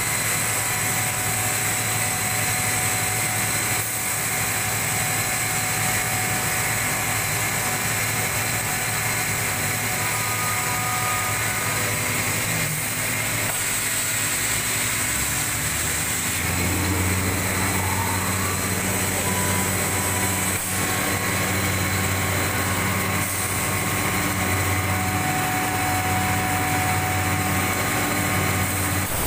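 CKE 18-inch, 185-watt, 1400 rpm exhaust fan running steadily: a rush of air over a steady motor hum, the low hum growing stronger about halfway through.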